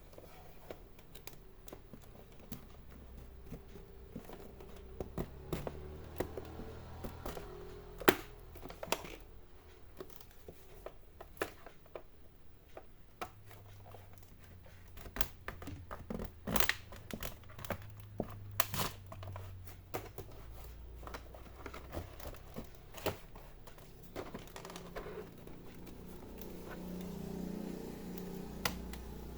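Irregular sharp clicks and scrapes of plastic as a pry tool works around the clipped edge of an all-in-one PC's plastic case, with one louder snap about eight seconds in.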